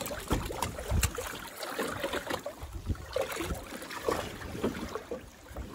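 Water slapping and trickling around a small boat, with scattered irregular knocks and clicks.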